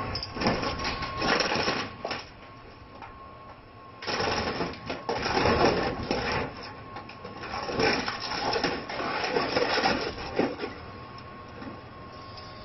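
Hydraulic excavator tearing into a Yak-42 airliner's fuselage to scrap it: irregular bursts of metal crunching and clattering, with a steady high tone underneath.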